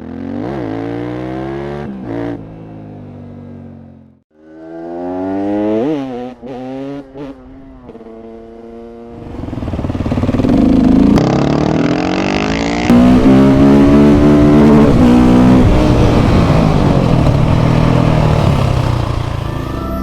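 KTM 690 SMC R's single-cylinder engine through a Leo Vince exhaust, revved in quick blips that rise and fall in pitch, twice in the first six seconds. From about nine seconds in it runs loud and hard under acceleration, with abrupt cuts between clips.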